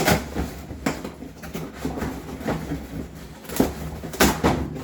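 Hands handling parts and packaging: irregular knocks and clicks with some rustling, with sharper knocks at the start and twice near the end.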